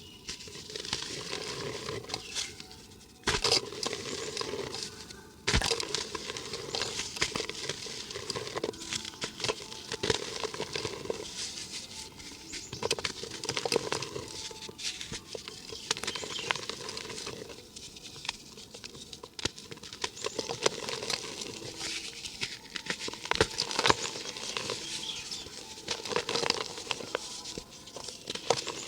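Dry cement and dirt being crumbled, a dense gritty crackling and pattering of small grains and lumps breaking up, with two sharper knocks about three and five and a half seconds in.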